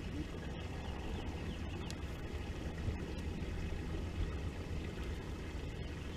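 Steady low rumble of wind and water slapping against a small fishing boat's hull on open water, with no clear separate event standing out.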